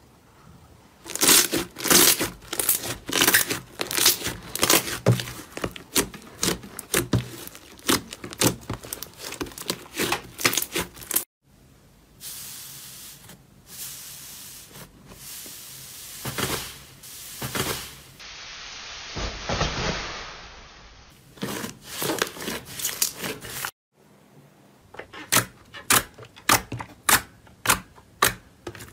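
Slime being pressed, poked and stretched by hand, giving rapid sticky pops and crackles. The sound cuts off suddenly twice; the middle stretch is a softer, smoother squishing with slow swells, and the quick pops return near the end.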